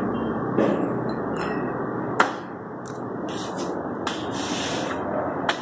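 Meat cleaver chopping a whole raw chicken on a wooden chopping block: a sharp chop about two seconds in and another near the end, with softer hissy cutting sounds between, over steady background noise.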